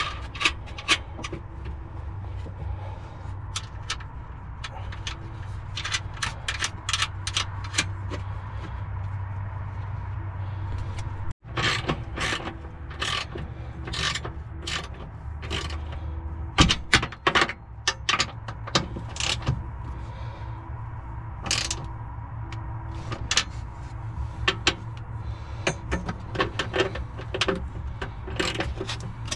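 Hand socket ratchet clicking in quick runs as it tightens down the 14 mm mounting bolts of a rear strut tower brace, with short pauses between runs.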